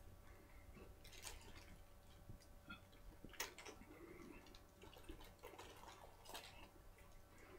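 Near silence with a few faint, scattered wet clicks of someone chewing a mouthful of McChicken sandwich.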